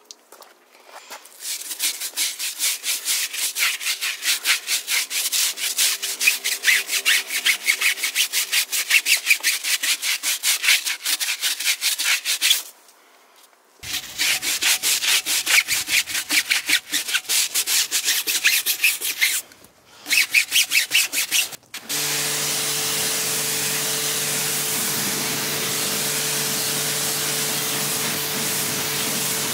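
Brush scrubbing a wet, soapy tyre in quick back-and-forth strokes, about four a second, in three spells with short pauses between them. About three quarters of the way through, a pressure washer jet comes on and runs steadily, with a low steady hum under the spray.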